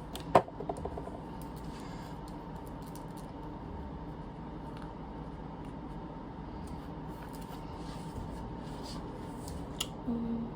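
Handling sounds: a sharp knock with a brief ring about half a second in, then faint scattered clicks and rustles over a steady low hum.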